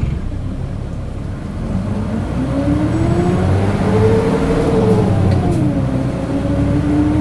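Mitsubishi Fuso KC-MP617K city bus's diesel engine pulling away, heard from inside the bus: a low rumble with a whining tone that rises with the revs, dips about five and a half seconds in as it changes gear, then climbs again. The running sound is abnormal and far from this model's usual sound, which the uploader suspects comes from some fault or trouble.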